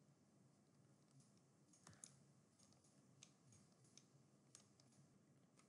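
Faint computer mouse clicks, about eight scattered single clicks over near-silent room tone.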